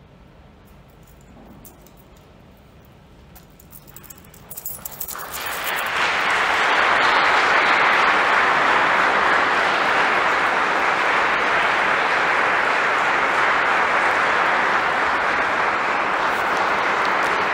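After a few quiet seconds, scattered claps begin about four seconds in and swell into steady audience applause by about six seconds.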